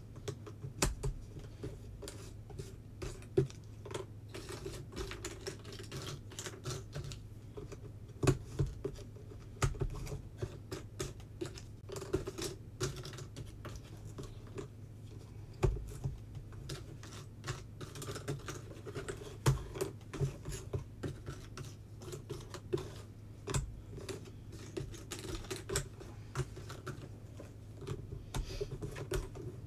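Textured 3D jigsaw puzzle pieces being picked up, sorted and set down on a tabletop: irregular light clicks and taps, with a few louder knocks, over a steady low hum.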